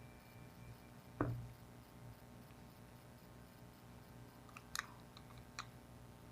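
Faint handling noise: a knock about a second in, then a few small clicks, over a low steady hum, from a pistol being turned over in the hands.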